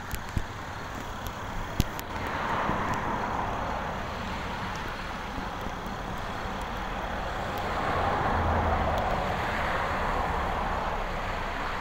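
Road traffic going by: tyre and engine hiss that swells as a vehicle passes about two seconds in and again around eight seconds in. A few sharp clicks come in the first two seconds.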